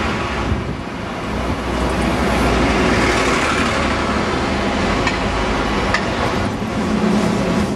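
Diesel buses running past close by on a city street, a single-decker and then a double-decker, over steady traffic noise. The engine rumble grows louder about two seconds in as the double-decker comes near.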